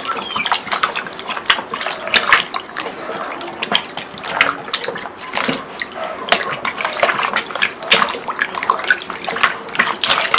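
Hands washing food ingredients in water: irregular splashing and sloshing, many quick splashes close together.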